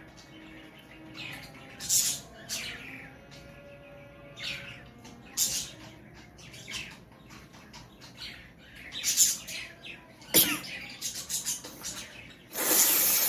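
A person with a heavy head cold blowing hard through the nose again and again in short hissy bursts, with one longer, louder blow near the end.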